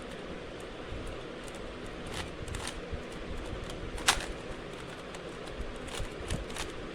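A plastic Rubik's cube being turned by hand: scattered sharp clicks as its layers are twisted, the loudest about four seconds in, over a steady low background hum.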